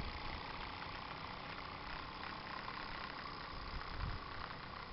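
Type 4 Mk3 model steam traction engine running under steam, a steady hiss, with a low bump about four seconds in.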